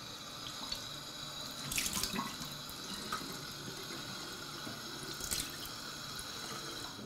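Bathroom sink tap running steadily into the basin, with two louder splashes, about two seconds in and again about five seconds in.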